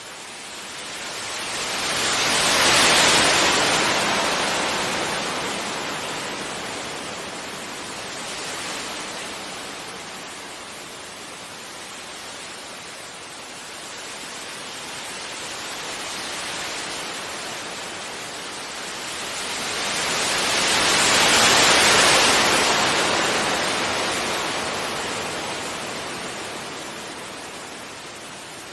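Sea waves breaking gently on a beach: a rushing hiss that swells and fades, with two big waves about three seconds in and near the twenty-second mark and smaller ones between.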